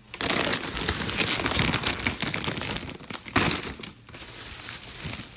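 Crinkly foil snack bags (bags of barbecue potato chips) rustling and crinkling as they are handled. The sound is dense for the first three seconds or so, then softer near the end.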